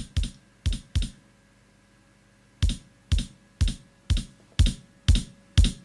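Electronic kick-drum sample played from a Maschine pad controller with note repeat. Three hits in the first second, a pause of about a second and a half, then evenly spaced hits about two a second.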